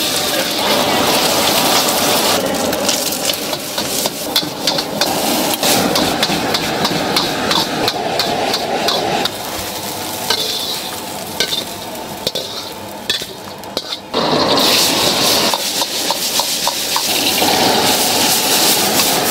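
Food sizzling in hot oil in a wok while a metal wok ladle scrapes and clanks against it in quick, irregular strokes. The sizzle gets suddenly louder and brighter about three-quarters of the way through.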